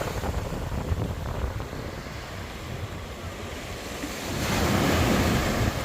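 Baltic Sea surf washing onto the shore, with wind buffeting the microphone; a wave swells louder about four seconds in.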